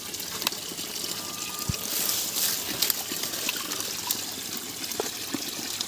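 Shallow stream water trickling steadily over rock slabs, with a few light clicks.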